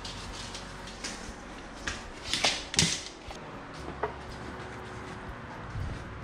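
A few scattered wooden knocks and clunks as a 4x4 post is handled and dry-fitted. The loudest two come close together a little past two seconds in, with a softer one about a second later.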